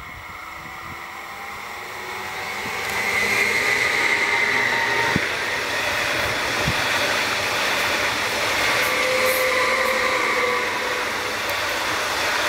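Stadler FLIRT electric multiple unit passing close: it grows louder over the first few seconds as it approaches, then a steady rush of wheels on rails with a high whine from the drives as the cars go by.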